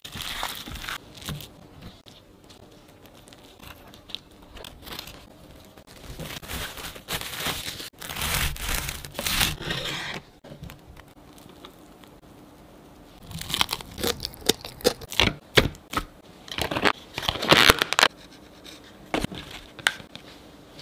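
Plastic cling film crinkling and tearing as food is wrapped, in irregular bursts. Later comes a longer run of sharp plastic clicks and crackles, then it quietens near the end.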